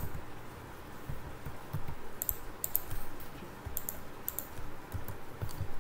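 Computer keyboard typing: short keystroke clicks in a few small clusters as a layer name is typed in.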